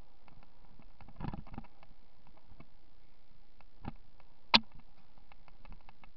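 Bicycle rattling and clicking as it rides over a bumpy dirt trail, with a cluster of knocks about a second in and one loud sharp click about four and a half seconds in, over a steady faint hiss.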